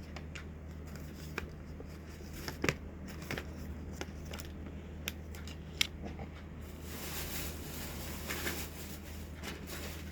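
Food packaging being handled and opened: scattered sharp clicks and snips, then a longer crinkly rustle from about seven seconds in, over a steady low hum.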